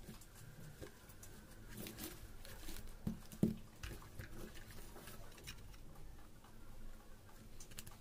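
Handling noise from a small plastic aquarium air pump as its air tube is pulled off and it is held: light rubbing and clicks, with two sharp knocks about three seconds in.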